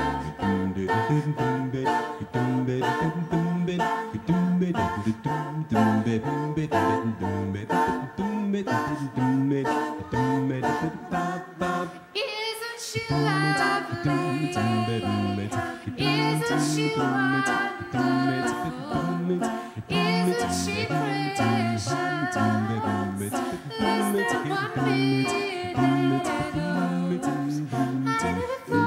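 Mixed-voice a cappella group singing through microphones: close harmony over a steady bass line sung by a low voice. About twelve seconds in the sound briefly drops, then a woman's lead voice rises above the group.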